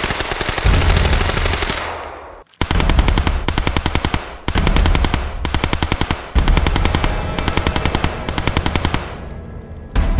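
Long bursts of rapid machine-gun fire, breaking off and starting again several times, with music underneath.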